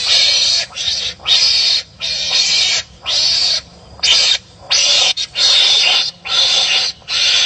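Wild animals giving harsh, raspy barking calls at each other, about ten calls in quick succession, each half a second to a second long with short gaps between.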